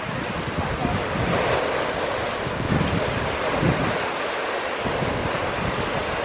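Ocean surf washing steadily, with wind buffeting the microphone in irregular low rumbling gusts.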